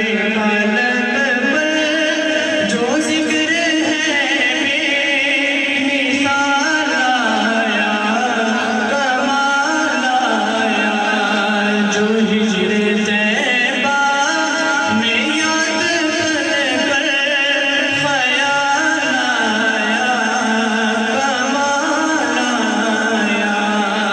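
Male voice singing a naat, an Urdu devotional hymn in praise of the Prophet, in long, wavering melodic phrases.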